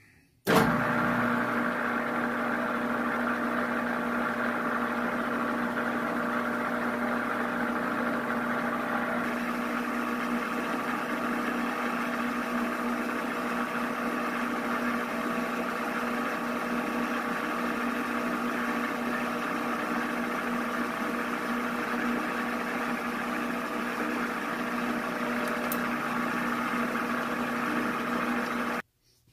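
Metal lathe running with its chuck spinning: a steady motor hum with a gear whine from the headstock. It starts suddenly about half a second in and cuts off suddenly near the end.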